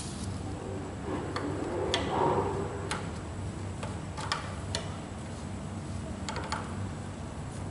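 Irregular light clicks and taps of metal parts being handled while a motorcycle clutch cable is fitted at the lever, with a brief rustle of handling about two seconds in. A steady low hum runs underneath.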